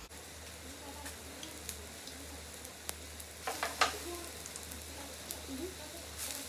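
Shabu-shabu hot pot on a tabletop gas burner hissing and sizzling steadily, with a few sharp chopstick-and-dish clinks about three and a half to four seconds in.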